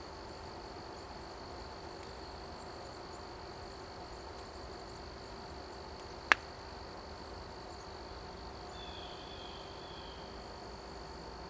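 Outdoor field ambience with a steady high-pitched drone, broken by one sharp click about six seconds in, the loudest sound here. A faint, brief bird call comes about nine seconds in and again at the end.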